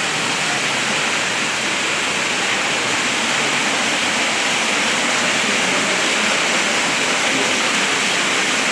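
Steady rushing of fast-flowing water in an underground river channel, an even noise with no breaks.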